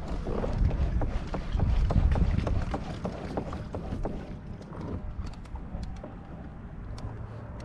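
Wind buffeting the microphone as a low rumble that eases after about five seconds, with many light ticks and knocks scattered through it.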